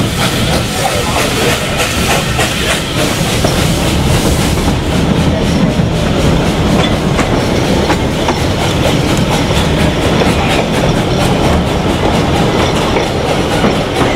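Narrow-gauge steam train running, heard from a carriage window. A hiss of steam is there in the first few seconds, then a steady rhythmic clatter of the train under way.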